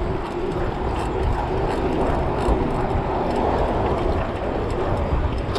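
Steady wind rush on the handlebar camera's microphone and tyre noise from a bicycle riding down a city street, with a faint steady hum and small rattles throughout.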